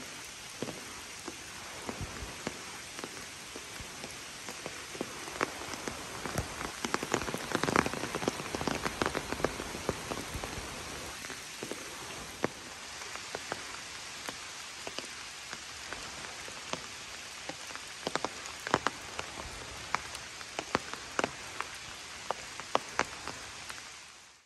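Steady rain falling, with many loud single drops striking close by on an umbrella overhead; the drops come thickest about eight seconds in.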